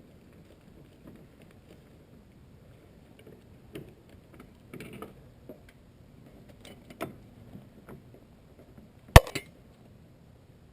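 Scattered light metallic clicks and knocks of tools and mount hardware being handled while lining up an engine mount's bolt holes, with one sharp, loud clack about nine seconds in.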